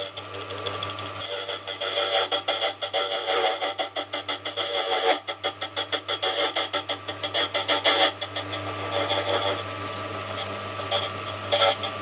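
Silca Super Special key-cutting machine cutting a key: the motor hums steadily while the newly replaced, very sharp cutter chatters rapidly against the key blank as the carriage is moved along. The chatter is densest for the first several seconds, then lighter.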